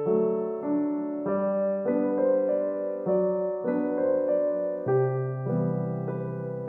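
Background keyboard music: a simple melody over held bass notes, with the notes changing about twice a second.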